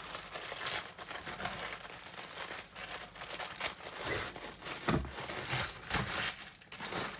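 Packaging being handled and unwrapped, with crinkling and rustling throughout and a single soft knock about five seconds in.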